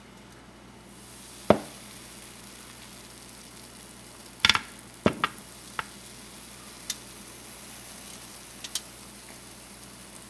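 Baking soda fizzing as vinegar is poured onto it: a steady high hiss that starts about a second in, with a handful of sharp clicks and taps scattered through it.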